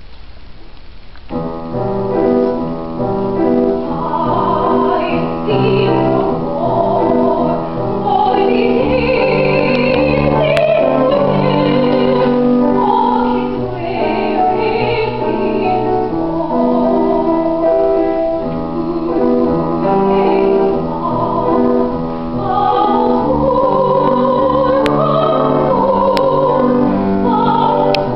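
Grand piano begins playing about a second in, and a woman sings in trained classical style with vibrato over the piano accompaniment.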